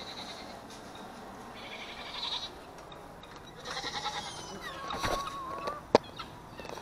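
Goats bleating, calling to be fed, with a sharp knock near the end.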